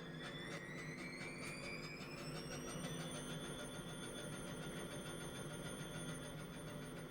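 Atlant 70U1214 front-loading washing machine spinning up: the motor whine rises in pitch for about three seconds and then holds steady over a constant hum. Regular light ticks come with each turn of the drum at first and fade as it speeds up.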